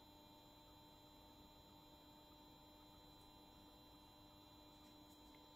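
Near silence with a faint, steady electrical hum made of several held tones.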